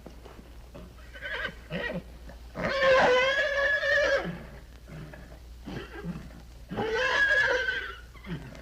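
A horse whinnying twice, each call lasting over a second with a wavering, quavering pitch, with shorter, softer sounds from the horse before and between the calls. A steady low hum runs underneath, as on an old sound-effects recording.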